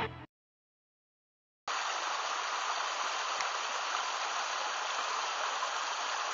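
Steady rushing noise of flowing river water, starting abruptly about a second and a half in after a brief silence.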